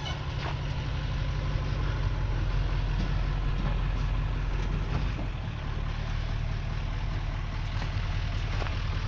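Truck engine running at low speed while towing a large camper trailer, drawing nearer and a little louder over the first couple of seconds, then holding steady.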